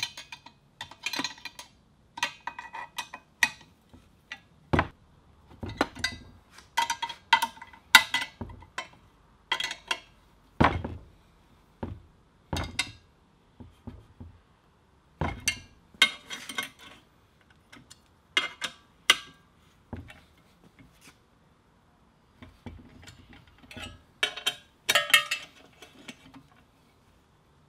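Irregular metallic clicks and clinks of a spanner being turned and repositioned on nuts while a T-handle hex key holds the countersunk bolt heads, tightening a motor's mounting bolts. The clinks come in runs with a couple of short pauses.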